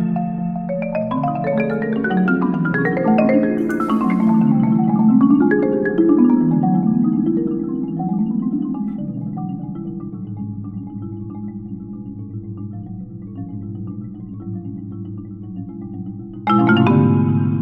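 Three marimbas played together with yarn mallets, sustained rolled chords and overlapping melodic lines. The playing fades to a soft low roll after about eight seconds, with a short hiss about four seconds in, then a sudden loud chord near the end.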